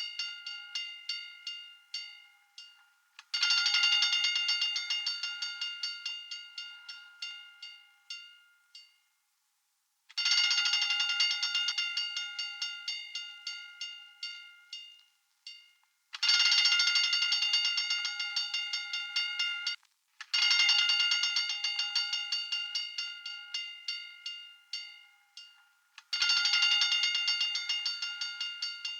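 Hand-cranked fire alarm bell ringing in bursts of rapid strikes: each burst starts loud and the strokes fade away over a few seconds before the next begins, about five bursts in all.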